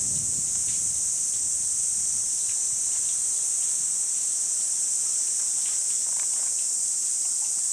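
Insects droning in a steady, unbroken high-pitched chorus, with faint scattered ticks.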